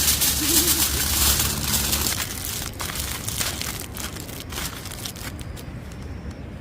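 Crinkling and rustling of handled material, dense over the first two seconds, then fading to softer, scattered rustles.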